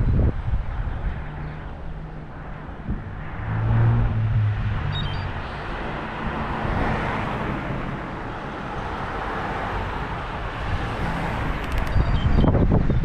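Road traffic heard from a moving e-bike: a steady low rumble of vehicles, with one swelling and fading as it passes about halfway through, and wind buffeting the microphone.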